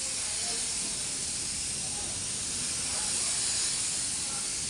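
Gravity-feed air spray gun hissing steadily as it sprays primer onto a vehicle's body panel.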